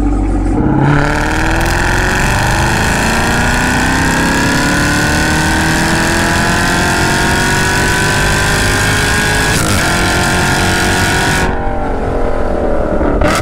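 Supercharged LT4 V8 of a 2023 Camaro ZL1 breathing through a Corsa Xtreme+ cat-back exhaust, in a full-throttle pull in third gear, revs rising steadily. It shifts up to fourth with a brief break near ten seconds, then lifts off about two seconds later with falling revs as it downshifts toward second.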